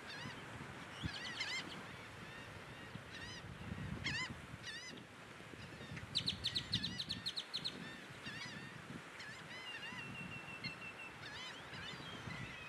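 Black skimmers calling: short, nasal, honking yaps scattered through, with a quick run of about ten sharp notes in the middle that is the loudest part. A short held whistle comes about ten seconds in, and a low rumble runs underneath.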